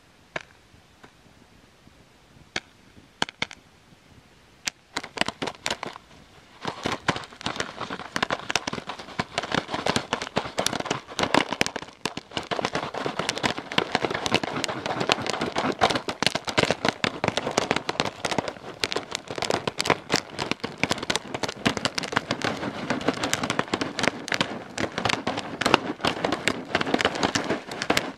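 Jiffy Pop popcorn popping over a fire: a few scattered pops at first, then about five seconds in the popping quickens into a dense, steady rattle of pops.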